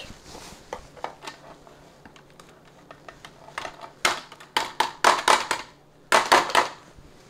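A stainless steel potato ricer clacking against a metal sheet pan as its handle is opened and worked. There are faint scattered clicks at first, then two quick runs of sharp metallic clacks in the second half.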